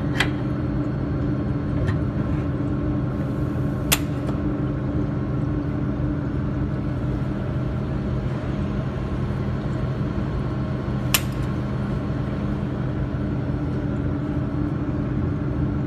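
Jewelry laser welding machine humming steadily, with three sharp clicks: near the start, about four seconds in and about eleven seconds in.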